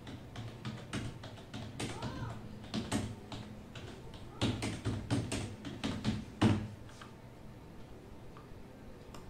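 Computer keyboard being typed on in irregular bursts of key clicks over a low steady hum. The clicks thin out after about seven seconds.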